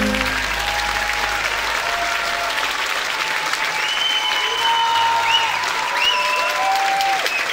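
Audience applauding after the last chord of a song fades out about half a second in, with scattered high cheers over the clapping.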